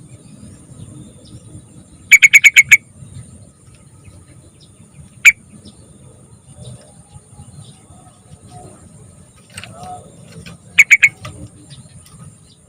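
Young yellow-vented bulbul (trucukan) calling: a quick burst of about six sharp, loud notes a couple of seconds in, a single note about five seconds in, and another short burst of about four notes near the end. A steady thin high hiss runs behind.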